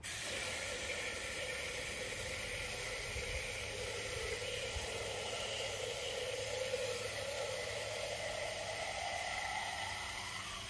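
Water from a garden hose nozzle pouring into an empty aluminium soda can: a steady rush of water, with a tone in it that rises in pitch over the last few seconds as the can fills.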